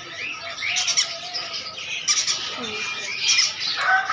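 Caged birds chirping and squawking in short sharp calls. Near the end a rooster starts a long crow.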